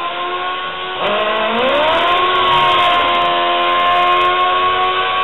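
Drag-racing motorcycle engine revving hard during a burnout, rear tyre spinning. The pitch rises a little over a second in and is then held steady at high revs.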